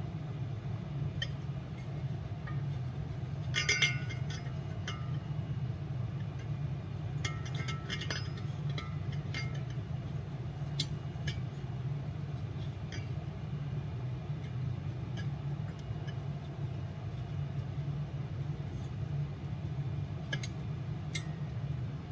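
Metal diesel-heater parts clinking lightly as they are handled and fitted together. There are two short clusters of clinks a few seconds apart, then scattered single clicks, over a steady low hum.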